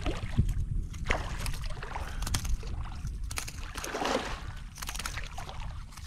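Shallow water splashing and sloshing in irregular bursts, the largest about two thirds of the way in, over a steady low rumble.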